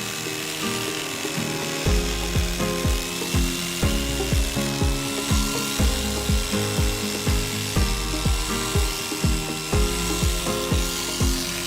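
Background music with a steady beat over the continuous rasping buzz of electric sheep shears cutting through fleece.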